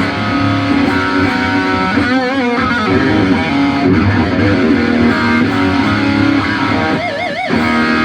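Overdriven electric guitar played through an EVH 5150 Iconic 15 amp head boosted by a Tube Screamer-style overdrive pedal. It plays sustained distorted notes and riffs, with wide vibrato on held notes about two seconds in and again near the end.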